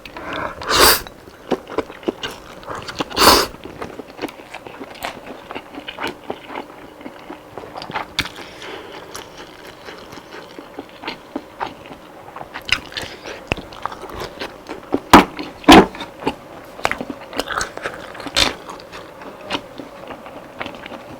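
Close-miked biting and chewing of crispy fried chicken: a steady run of crunches and wet clicks, with a few much louder bites about a second in, near three seconds, and twice around fifteen seconds.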